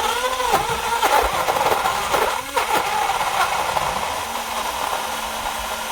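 Mulli 15 oz battery-powered portable blender running, its small motor blending frozen strawberries and pineapple chunks in liquid. The motor's pitch dips and recovers repeatedly in the first three seconds as the fruit works through the blades, then settles to a steadier whir.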